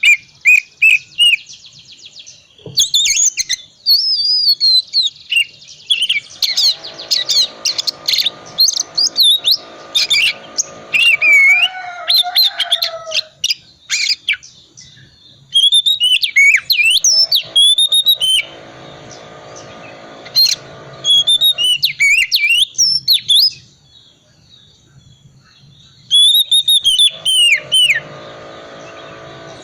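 Oriental magpie-robin singing a varied song of whistles, pitch sweeps and rapid chirps packed with mimicked phrases, in bursts separated by short pauses. A lower buzzing sound with many tones comes and goes under the song three times.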